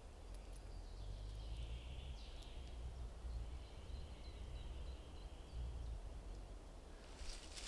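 Quiet forest ambience: a faint, thin, high bird call drawn out through the middle, over a low steady rumble. A loud rustle of leaf litter underfoot starts right at the end.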